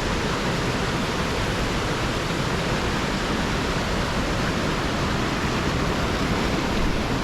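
Rushing whitewater: a loud, steady hiss of falling and tumbling water with no breaks.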